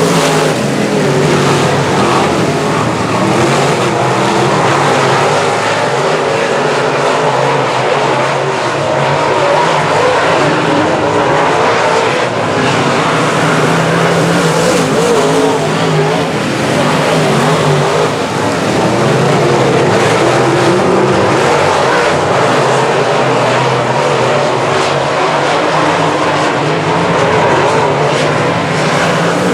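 A field of semi-late model race cars running at racing speed, engines loud and steady, their pitch wavering up and down as the cars circle the track.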